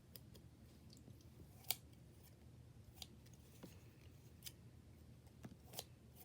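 Butter slime being cut: about seven short, sharp clicks at uneven intervals. The loudest is just under two seconds in.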